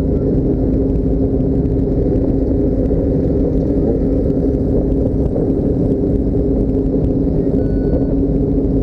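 Motor vehicle running at a steady speed: a constant low engine drone over road rumble, with no change in pitch.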